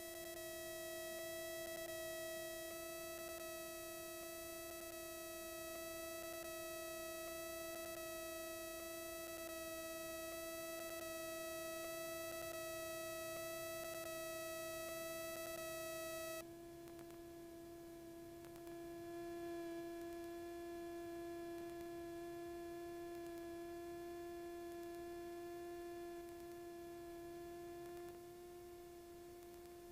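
A steady electrical whine on the aircraft's intercom audio: one held tone with many overtones. The upper overtones cut out suddenly about 16 seconds in, leaving a thinner hum.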